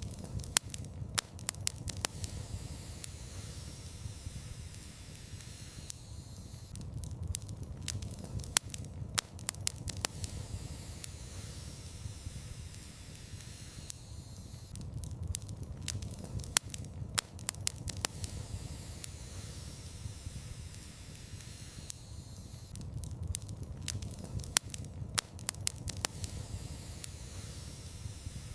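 Wood fire in a fireplace crackling: clusters of sharp pops and snaps about every eight seconds over a low, steady rumble and soft hiss.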